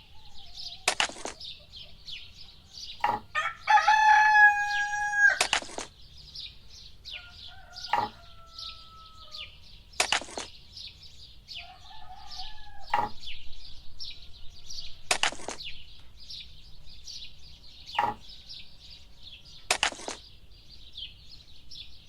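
A rooster crowing once, loud and about two seconds long, against a steady background of high bird chirping. Fainter calls follow twice, and sharp taps come every two or three seconds.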